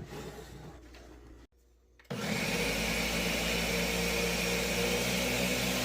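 Countertop blender motor starting about two seconds in and then running steadily, mixing a thin batter of eggs, flour and milk.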